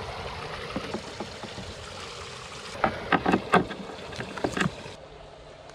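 Wind noise on the microphone, with a string of light clicks and knocks about three to four seconds in as a power cord and its plug are handled and fed through a hole in a wooden panel. Near the end the wind gives way to a faint steady low hum.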